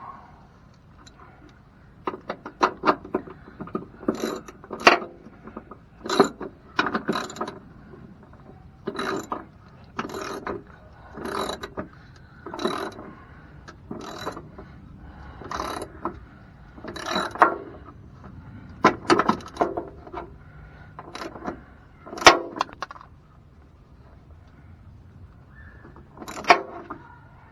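Hand ratchet wrench clicking in repeated strokes, about one stroke every second and a half, as bolts are tightened; each stroke is a quick run of clicks.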